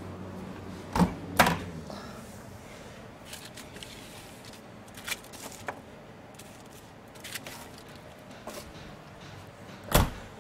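Kitchen work noise: sharp knocks and clicks of utensils on metal, two about a second in and the loudest near the end, with lighter taps between. A low hum fades out in the first two seconds.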